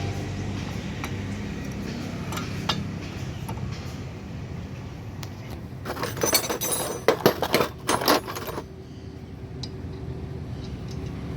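Metal objects clinking and rattling, a dense run of sharp clinks for about two and a half seconds midway, over a steady low hum.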